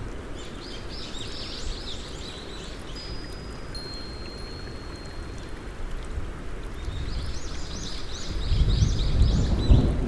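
Steady rain falling, with a small bird chirping in quick runs of high notes about a second in and again near the end. A low rumble swells in the last couple of seconds.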